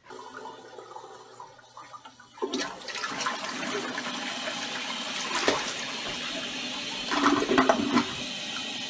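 Toilet flushing: a steady rush of water into the bowl starts about two and a half seconds in, with a brief louder sound near the end.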